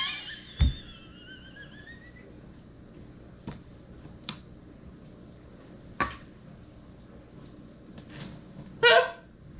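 Kitchen utensils handled on a countertop: one low thump about half a second in, then three light clicks and knocks as a mesh strainer and a plastic mixing bowl are set down and picked up.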